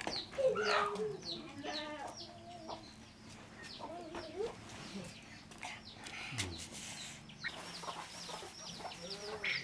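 Chickens clucking, with many short, high, falling chirps repeating quickly, thickest near the end.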